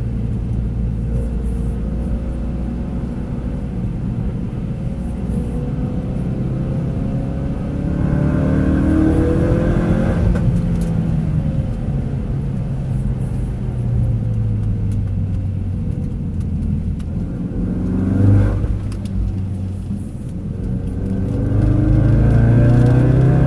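Ford Focus RS engine heard from inside the cabin, pushed around a wet circuit: steady revs at first, then accelerating with a rising pitch about a third of the way in, easing off, and climbing again, with one brief louder spike late on before a final strong pull near the end.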